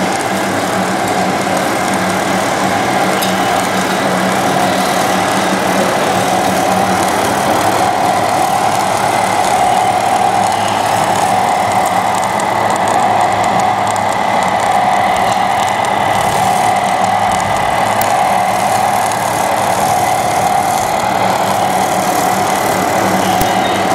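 Radio-controlled scale construction machines, two Hamm H 20i road roller models among them, running steadily: a constant engine-like hum with a whine on top.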